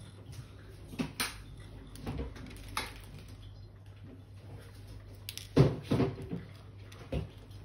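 Hard-boiled eggshell being picked apart by small fingers: light clicks and taps of shell and fingertips on a plastic plate, with a louder cluster of knocks about five and a half seconds in.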